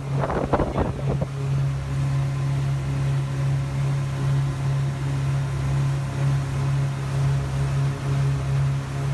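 Yamaha 242 jet boat's engine running steadily at low speed: a constant low hum with a slight regular pulsing.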